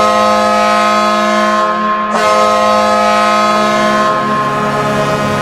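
Ice hockey goal horn blasting a chord of steady tones, with a short dip about two seconds in before it sounds again.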